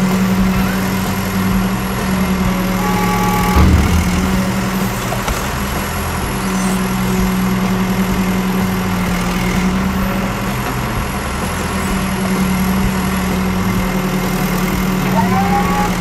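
Engine sound effect for an animated crawler bulldozer: a steady running drone that drops out briefly twice.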